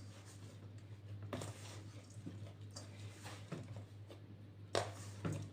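A hand working soft, sticky bread dough in a bowl: faint squishes and light knocks about a second apart, the loudest near the end.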